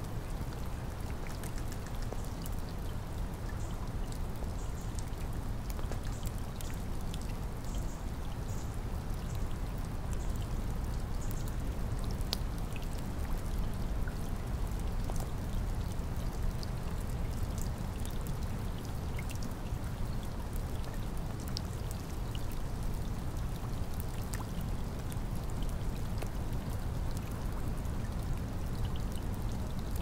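Steady heavy rain: an even rush of noise with scattered sharp drops ticking through it.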